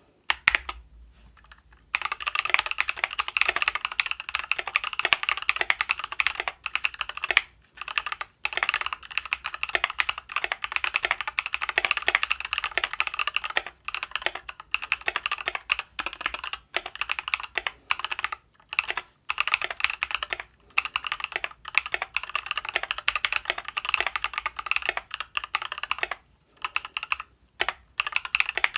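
Typing on an ID80 mechanical keyboard with lubed and filmed Novelkeys Kailh Cream switches under high-profile MT3 Susuwatari keycaps: a fast, steady stream of keystrokes starting about two seconds in, with brief pauses between bursts.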